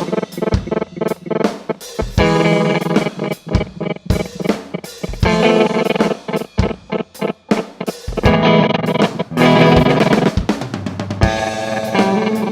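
A 1976 Gibson ES-335 electric guitar played through a Red Panda Particle granular delay pedal, with a drum kit playing along and sharp drum hits throughout.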